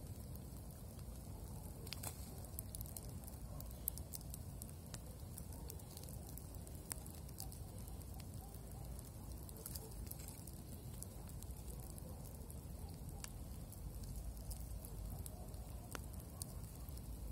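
Campfire burning, crackling with irregular sharp pops and snaps over a steady low rumble.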